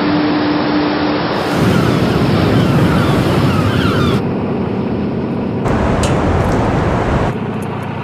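Sea surf and wind noise, cut abruptly into several short stretches, with a few sharp clicks in the louder stretch about six seconds in.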